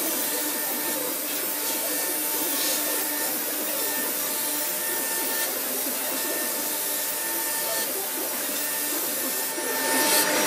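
CNC router spindle running and milling a wavy relief texture into a wood panel: a steady high whine over the hiss of the cutter in the wood, growing louder near the end.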